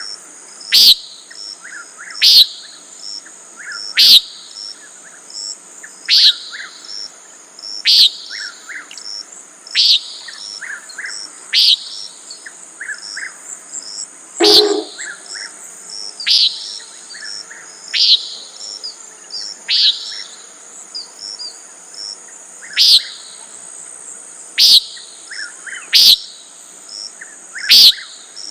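Common nighthawk repeating its short, nasal 'peent' call about every two seconds, over a steady high insect trill. About halfway, one deeper, lower sound stands out among the calls.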